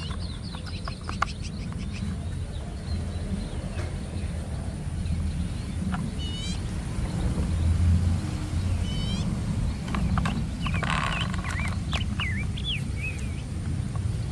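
Birds chirping in short repeated series over a steady low rumble, with a few sharp plastic clicks and a brief rustle as plastic toy wheels are pressed onto a toy truck's body.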